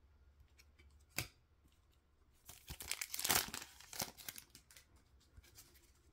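Wrapper of a 2023-24 Upper Deck MVP hockey card pack crinkling as it is opened, with a burst of rustling a couple of seconds in. A single click comes about a second in.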